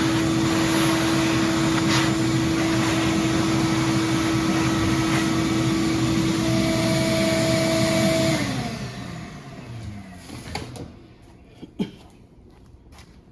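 Vacuum cleaner running steadily with a constant whine. It is switched off about eight seconds in and winds down, falling in pitch. A few light clicks and a short knock follow as it is handled.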